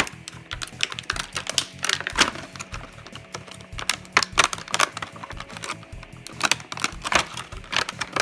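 Clear plastic wrapping crinkling and crackling as hands handle it and work a toy motorcycle inside it, in many quick, irregular crackles.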